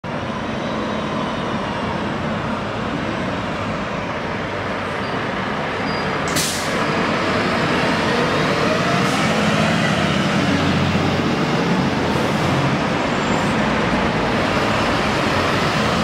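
Volvo fire engines responding on blue lights, their sirens wailing and their diesel engines growing louder as they approach. There is a short sharp hiss about six seconds in.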